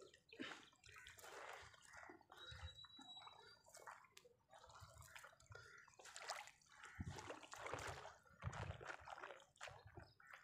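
Faint, irregular dripping and small splashes of water running off a fine monofilament fishing net as it is hauled hand over hand out of the water into a small boat.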